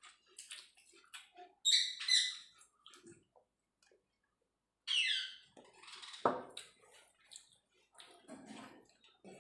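Close-up eating noises from two people eating by hand: chewing and lip smacking with small clicks. There are short, high, squeaky chirps, two of them about two seconds in and a falling one about five seconds in.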